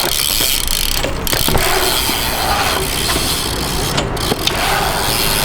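BMX bike riding over ramps: steady rolling tyre noise with a few sharp knocks.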